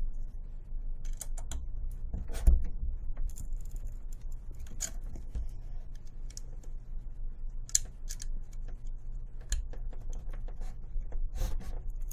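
Hex key turning the clamping bolts of a metal AR-15 rail handguard that are getting tight: scattered small clicks and scrapes of the key in the bolt heads and of hands handling the rail, with a louder knock about two and a half seconds in.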